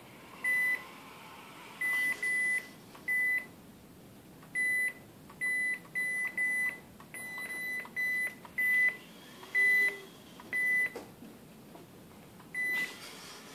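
Electronic beeper sounding about fifteen short, high beeps of one pitch at irregular intervals, some in quick pairs.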